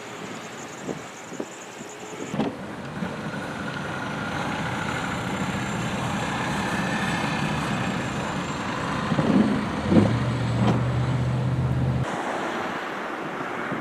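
A motor vehicle running in the snow, its sound building over several seconds, with a few knocks and a steady low hum near the end.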